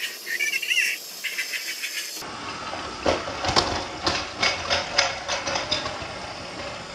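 Battery-powered Plarail toy trains running on plastic track: a thin whirring hiss at first, then, about two seconds in, a closer and fuller motor whir with many sharp plastic clicks and clacks as a train crosses the tilting see-saw bridge.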